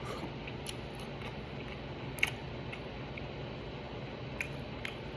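A person chewing a mouthful of chicken breast, with a few faint wet clicks, the sharpest about two seconds in, over a steady low room hum.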